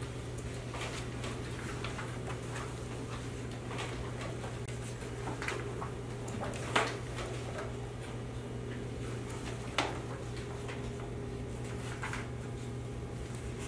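Meeting-room tone: a steady low hum with scattered small clicks and taps, and two sharper knocks about seven and ten seconds in.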